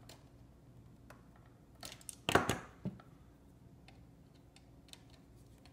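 Small hand-tool clicks as a wire hook is closed onto a receptacle's terminal screw, with one short, loud metallic clatter a little over two seconds in.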